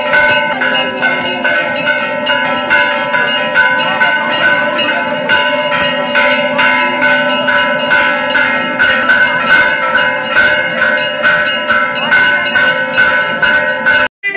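Temple bells rung rapidly and continuously for aarti, about four strikes a second over a steady overlapping ring. The sound breaks off abruptly near the end.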